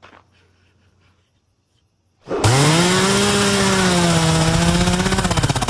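A few faint clicks in near quiet, then about two seconds in a chainsaw bursts in loud, revs up quickly and holds at high speed with a slight wobble in pitch.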